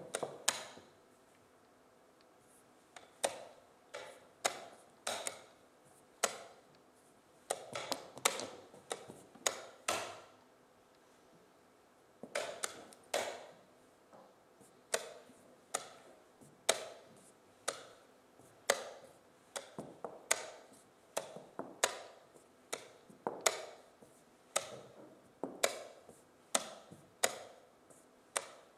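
Wooden chess pieces clacking onto the board and the chess clock being pressed, move after move, in a fast blitz game: sharp knocks, irregular at first, then a quicker, steadier run of about one to two a second from about twelve seconds in.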